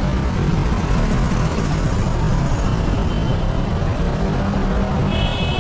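Steady city road traffic: car, taxi and bus engines and tyres on a busy street, heard from the sidewalk. A few high steady tones come in near the end.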